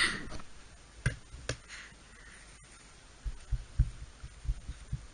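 Toothbrush bristles dabbed and tapped against a clay roll-cake model on a towel-covered table, giving it a rough texture: a brief noise at the very start, two light clicks about a second in, then soft, low, uneven thumps, three or four a second, through the second half.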